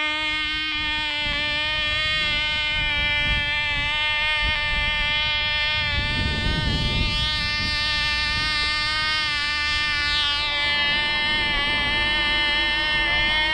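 Cox TD .049 glow engine of a 1/2A Baby Ringmaster control-line model running flat out in flight, a steady high-pitched buzz. A rush of wind noise on the microphone swells about six seconds in.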